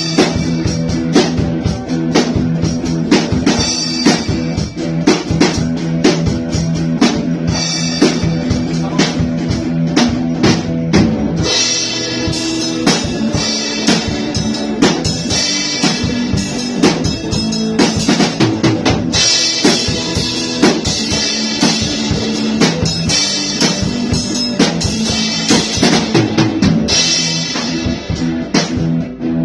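A drum kit and guitar playing a jam cover with a steady, busy beat. The low held notes drop out and the part changes about eleven seconds in.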